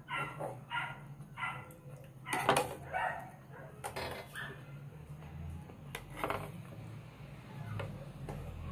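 A dog barking repeatedly, short barks about two a second at first, then more spaced out, the loudest about two and a half seconds in, over a steady low hum.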